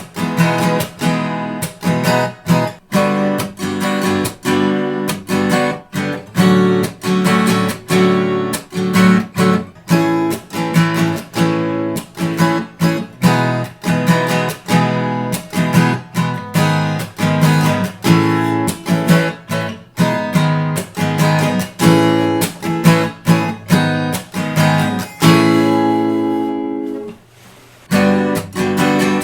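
Acoustic guitar strummed in a steady run of chords, about two strokes a second. A chord is held and left to ring near the end, then dies away briefly before the strumming starts again. It is picked up by a microphone in the middle of a small room treated with acoustic foam panels.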